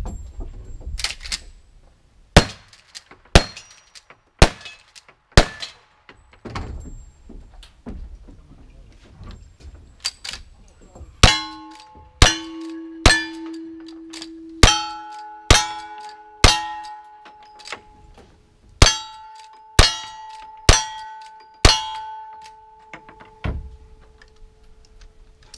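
Gunshots fired at steel targets, each shot followed by the clang of the steel plate. A run of five shots about a second apart, a pause of several seconds, then about a dozen more. From about eleven seconds in, the steel rings on after each hit.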